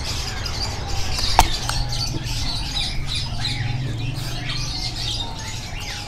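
Many small birds chirping and squawking throughout, with a single sharp click about a second and a half in and a low steady hum underneath.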